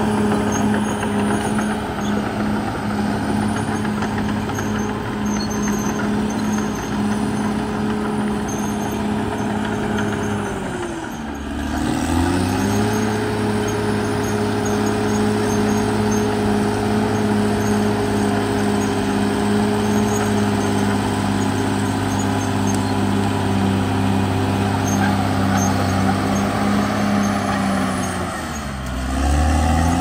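Caterpillar D6R XL bulldozer's diesel engine running steadily while the dozer works. Its pitch sags and climbs back up about eleven seconds in, and again near the end.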